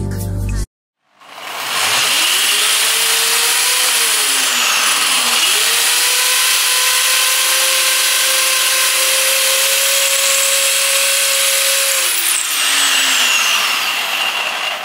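An electric motor running with a loud rushing hiss. Its pitch rises, dips about four seconds in, climbs again and holds steady, then winds down near the end.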